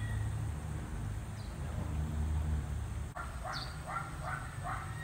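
A low rumble for the first three seconds, then a quick run of about five short, harsh animal calls, about three a second. A bird's brief high chirp sounds at the start of the run.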